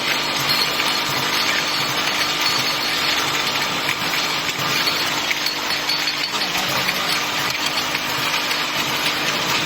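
Bottle filling line for liquids running steadily: a constant machine hum with a continuous patter of small clicks.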